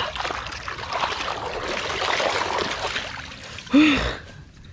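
Bare feet squelching and splashing through muddy rice-paddy water for about three seconds, then a short, loud rise-and-fall vocal cry near the end.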